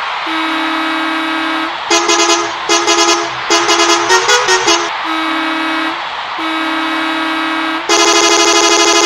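Volvo bus air horn sounding in edited variations: long steady blasts on two close notes, a stretch of rapid stuttering toots in the middle, then a louder, harsher buzzing version near the end.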